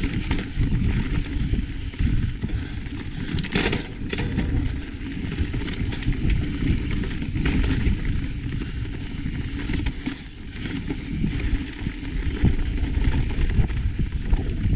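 Mountain bike riding over a dry, rocky dirt trail: a steady rumble of wind on the microphone, with tyres crunching and the bike rattling and clicking over rocks.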